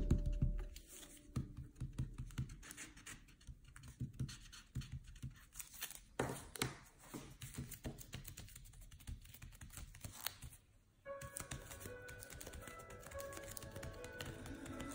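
Light, irregular taps and scratchy clicks of gloved hands working a glue pen and loose gold foil flakes against the deckled edge of a paper menu. About eleven seconds in, the tapping gives way to soft music with held tones.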